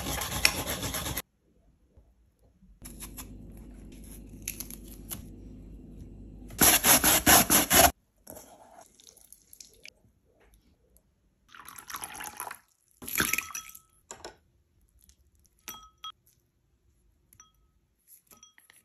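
A run of short kitchen prep sounds in separate bursts: water and grating in the first seconds, a loud splashing burst around seven seconds in, then several light clinks of ceramic and glass dishes, each with a brief ringing tone, over the last few seconds.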